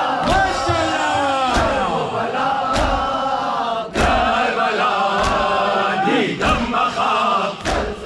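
Mourners chanting a noha in unison, with seven sharp unison chest-beating (matam) strikes, a little over one a second.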